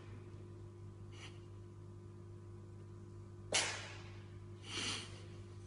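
Cat sneezing: one sharp, sudden sneeze about three and a half seconds in, followed about a second later by a second, softer burst, with a faint short puff about a second in.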